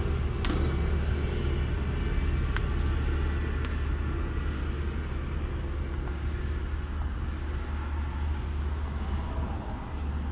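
Steady low rumbling hum, like a motor or engine running, with a few light sharp clicks.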